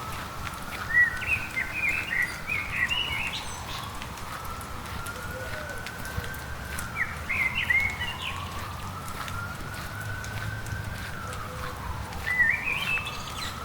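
A distant emergency-vehicle siren wailing, its pitch sliding slowly up and down over and over, under steady rain. Songbirds chirp in short bursts three times.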